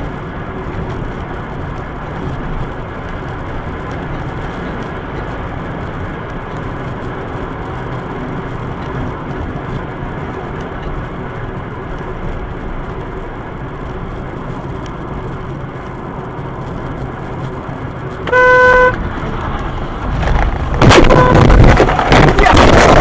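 Steady road and engine noise of a car driving. About 18 seconds in, a car horn gives a short, loud blast. About three seconds later a much louder burst of noise starts, with the horn sounding again through it.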